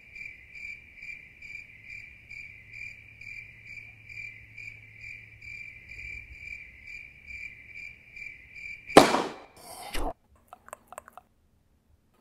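Crickets chirping steadily, about three chirps a second. About nine seconds in they are cut off by a loud, sudden rush of noise and a second, shorter burst that stops abruptly, followed by a few faint clicks.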